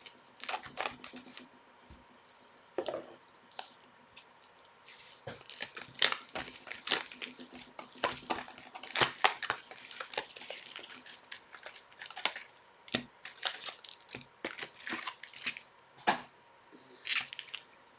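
Plastic and foil packaging of hockey card boxes and packs being torn open and crinkled by hand: irregular crackling and tearing, sparse at first, then denser and louder from about five seconds in.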